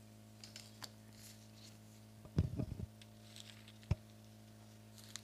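Faint rustling and clicks from Bible pages being turned close to a handheld microphone, with a louder soft knock about two and a half seconds in and a sharp click near four seconds. A steady low electrical hum from the sound system runs underneath.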